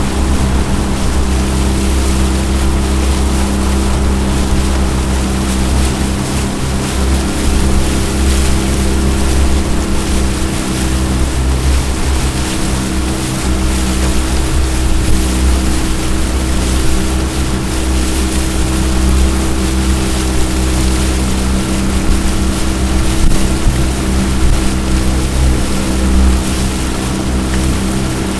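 A jon boat's outboard motor running steadily under way, a constant low engine drone with an even hiss of rushing water and wind over it.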